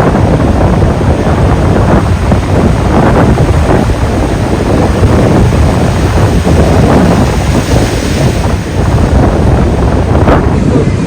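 Strong wind buffeting the microphone with a loud, steady rumble, over the wash of ocean surf and swell.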